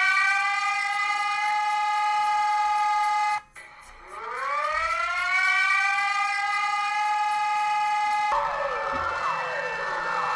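A siren winds up in pitch and holds a steady high note, cuts off about three and a half seconds in, then winds up and holds again. About eight seconds in it gives way to several overlapping sirens wailing up and down in pitch.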